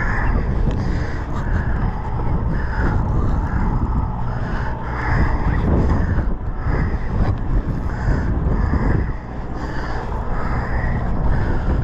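Steady rumble of a sportfishing boat's engine with wind noise on the microphone.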